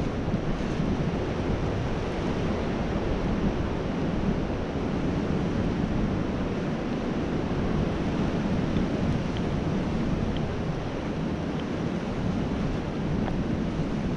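Strong wind blowing steadily, with heavy low buffeting of wind on the microphone.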